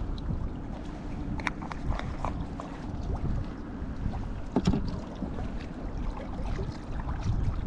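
Steady wind noise on the microphone, with a few small clicks and taps from hands handling a bait jar and hook.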